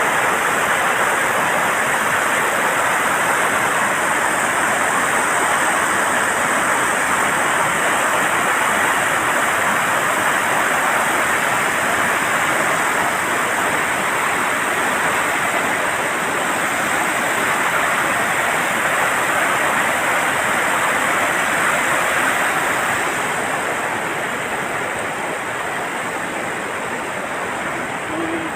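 Floodwater rushing through the opened gates of the Serut dam in a steady, loud rush that eases slightly near the end; the gates have been opened on flood alert.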